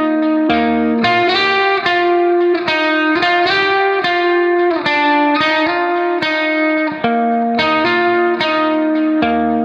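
Background instrumental music: a plucked guitar melody of sustained, ringing notes at a steady tempo.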